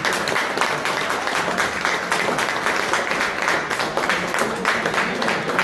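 A small group of people applauding, many overlapping hand claps going on steadily.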